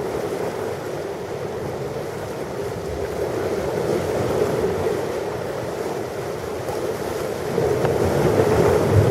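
Ocean surf: waves washing in as a steady rush of noise that swells twice, gently midway and more strongly near the end.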